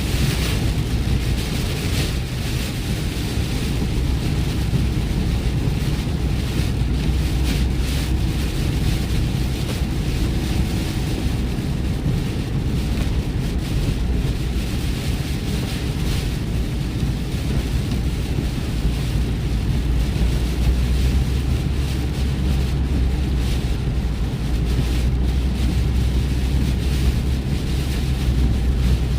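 Steady highway driving noise on a wet road: a low drone of tyres and engine under an even hiss of water spray and rain, with brief swells of hiss a few times.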